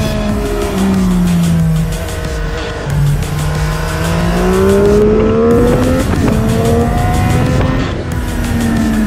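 Yamaha XSR900's three-cylinder engine on the road with wind rush on the microphone. The engine note falls at first, climbs steadily under acceleration from about three seconds in, holds, then drops again near the end as the throttle is rolled off.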